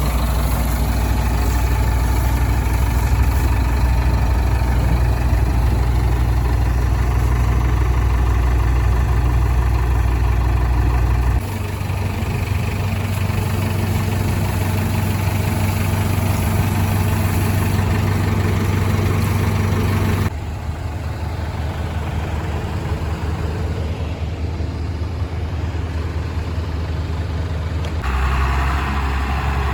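Heavy diesel engine of a backhoe loader running steadily at low revs, its note changing abruptly about eleven, twenty and twenty-eight seconds in.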